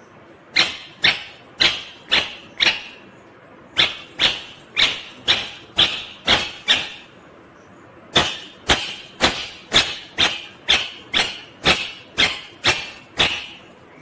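Rose-ringed parakeet screeching: a run of shrill, harsh calls about two a second, in three bursts of five, seven and about eleven calls with short pauses between.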